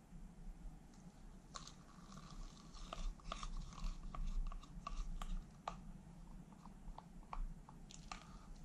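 Wooden craft stick stirring acrylic pouring paint in a plastic cup: an irregular run of small clicks and scrapes as the stick knocks against the cup, starting about a second and a half in.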